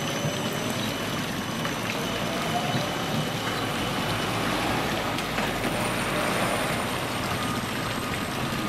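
Tram running past on its street track, with the steady splash of a fountain's water jet falling into its stone basin close by.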